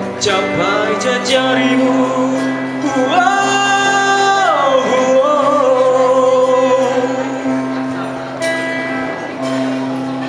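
Live band playing on electric guitar, bass guitar and drum kit, with a long held note about three seconds in that slides down and gives way to the rest of the band.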